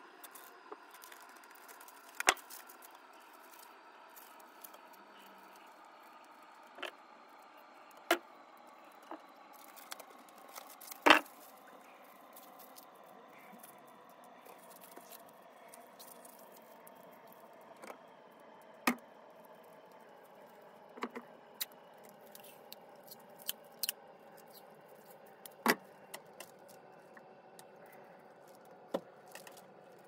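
Hands handling a plastic-wrapped part and small tools: scattered sharp clicks and knocks, about fifteen in all, the loudest about 11 seconds in. Under them runs a faint steady hum of several tones that slowly sinks in pitch.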